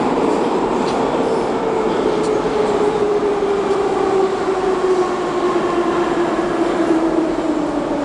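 Moscow metro train at a platform with a steady whine that slowly falls in pitch over several seconds, over a continuous rumble of the train and station.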